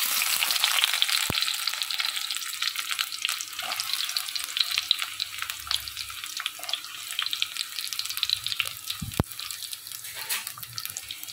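Chopped onions dropped into hot oil and ghee in a clay pot, sizzling at once and then frying steadily with constant crackling while they are sautéed, with occasional clicks of the stirring spoon.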